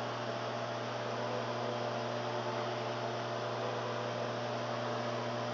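LG microwave oven running, a steady hum over an even hiss.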